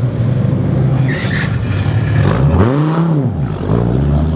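Maserati MC12 Corsa's 6.0-litre V12 idling, then revved once about two and a half seconds in, the pitch rising and falling back to idle within about a second.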